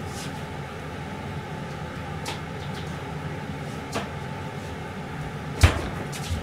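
Steady low kitchen hum with a few faint clicks and one louder sharp knock about five and a half seconds in.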